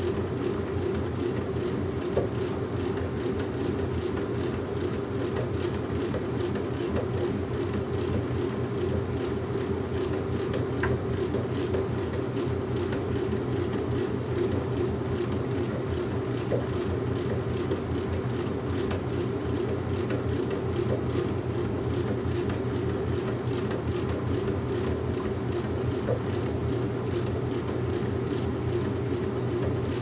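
Washing machine running: a steady hum and rumble with a few faint clicks.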